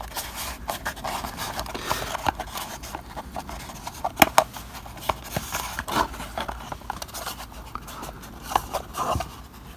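Stiff card roof panels rubbing, scraping and clicking against a model building as they are pressed and shifted by hand to seat them. The sharpest click comes about four seconds in.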